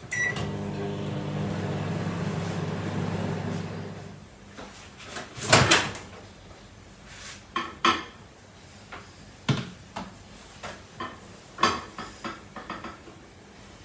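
Microwave oven beeps once on starting and runs with a steady hum for about four seconds before it stops. A series of sharp clicks and knocks follows, the loudest about five and a half seconds in, from the door latch and the dish being handled.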